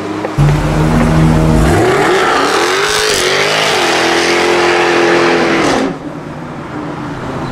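Jaguar F-Type R's supercharged V8 doing a burnout: it comes in hard about half a second in, revs up, and is held high with a broad hiss of spinning tyres for about four seconds, then drops off suddenly near the end.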